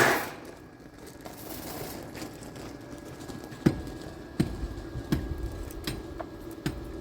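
A series of sharp knocks with dull thuds, about one every three-quarters of a second, starting a few seconds in, over a faint steady hum.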